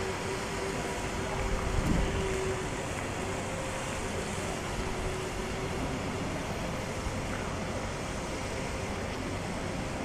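Steady outdoor noise of wind on the phone's microphone, with a faint steady hum underneath. It swells slightly about two seconds in.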